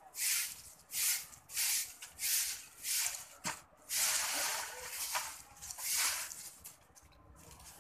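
A broom sweeping a concrete floor: short swishing strokes about one and a half a second, running together into a longer continuous brushing in the middle, then dying down near the end.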